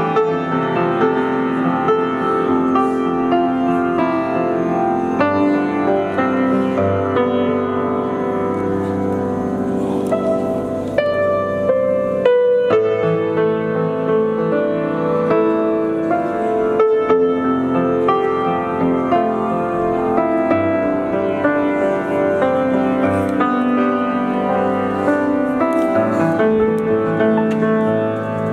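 Solo grand piano playing a slow classical-style piece, steady and continuous.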